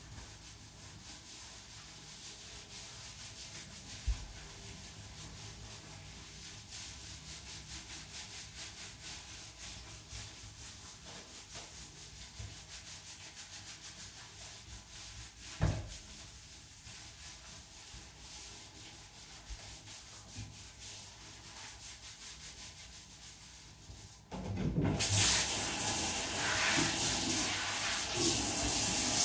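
Gloved hands rubbing and scrubbing a wet saluki's coat, a steady fast rubbing with two brief thumps. Near the end, water starts spraying from a handheld shower head, much louder than the rubbing.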